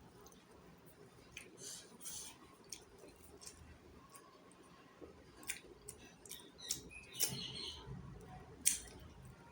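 Close-miked eating sounds: scattered wet mouth clicks and smacks of chewing, with a louder cluster of smacking about seven seconds in and a sharp click near the end.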